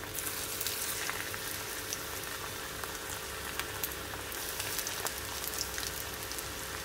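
Semolina-coated breadfruit slices deep-frying in hot oil in a kadai: a steady sizzle with scattered crackles, louder just after the first slice goes in.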